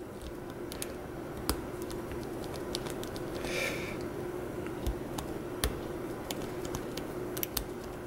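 Small, irregular metallic clicks and scraping of a lock pick and tension wrench working the pins inside a BEST padlock's tight PKS WC keyway, single-pin picking toward a false set. A short scratchy rustle comes about three and a half seconds in, over a steady low hum.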